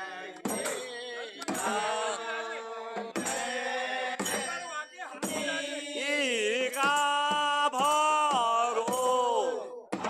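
Men singing a Kumaoni Holi song together, with a dhol struck about once a second; the singing grows louder about halfway through.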